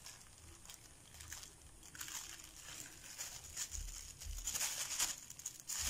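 A thin clear plastic bag of flour crinkling as it is handled and squeezed. Quiet for the first couple of seconds, then crinkles come more and more often toward the end.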